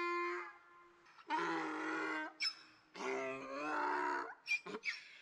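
Donkey braying loudly: a long held note that ends about half a second in, then two rough, drawn-out brays of about a second each.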